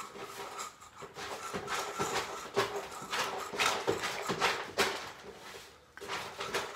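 Cats eating their freshly served food: irregular crunching and clicking, with a faint steady hum underneath.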